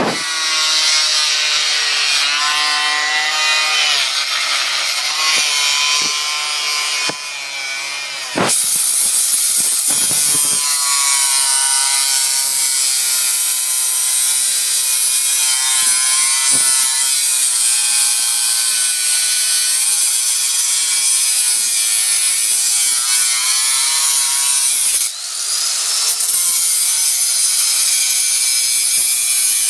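Angle grinder with a cut-off disc cutting through the metal of a hard drive, a loud steady grind whose pitch wavers as the disc bites and the load changes. The grind eases briefly about seven seconds in and again near twenty-five seconds, then comes back up to full level.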